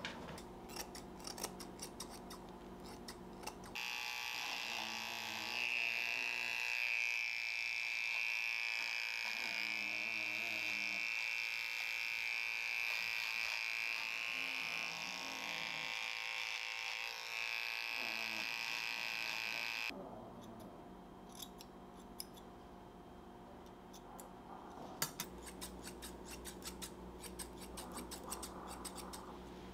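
Small electric pet paw trimmer running with a steady high whine for about sixteen seconds as it shaves the fur between a dog's paw pads. Quick crisp snips of grooming scissors come before and after it.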